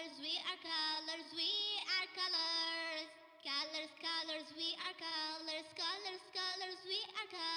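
Cheerful children's background music with a high, voice-like melody in short phrases; it breaks off briefly about three seconds in, then goes on.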